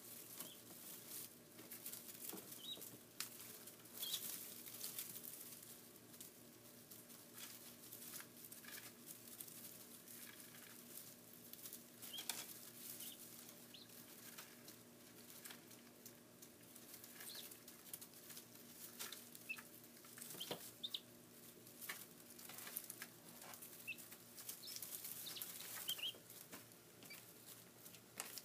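Day-old guinea fowl keets peeping, short high chirps scattered throughout, over soft clicks and rustles of small feet and beaks in straw bedding.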